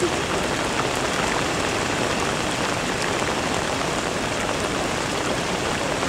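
Heavy typhoon rain pouring down steadily, an even, dense hiss with no let-up.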